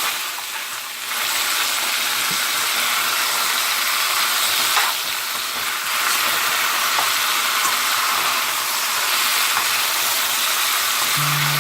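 Chicken frying in oil in a pan: a steady sizzle with a few light clicks of stirring.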